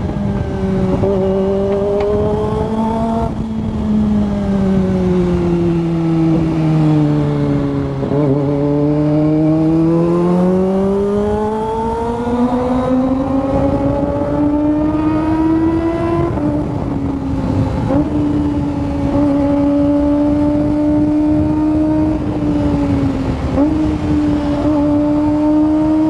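Kawasaki ZX-25R's 249 cc inline-four engine running under way. Its note drops over the first several seconds, climbs steadily for about eight seconds, then holds high with a brief dip near the end.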